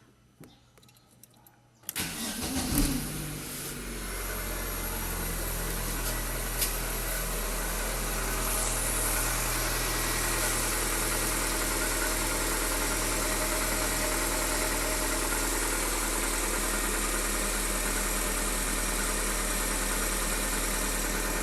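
Fiat Palio 1.8R's GM Família I four-cylinder engine started about two seconds in: brief cranking, it catches, then settles into a steady idle. The noise from the top of the engine that the owner is asking about is still there while it idles.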